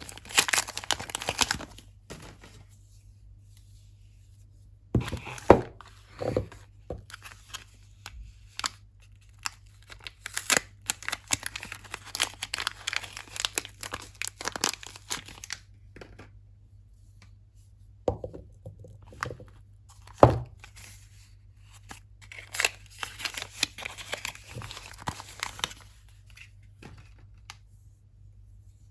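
Soap bars being unwrapped: packaging crinkling and tearing in spells of a few seconds with short quiet pauses between, and a few sharp knocks, the loudest about five seconds in and again about twenty seconds in.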